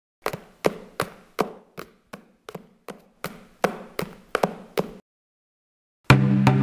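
A run of about fifteen sharp taps or knocks, roughly three a second, each ringing briefly, stopping about five seconds in. About a second later, louder percussive music with drums and a wood block begins.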